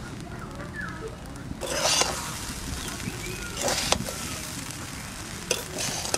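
Metal spatula stirring lemon rice in a metal pan to mix in the lemon juice, with three rough scraping strokes at about two, four and five and a half seconds in.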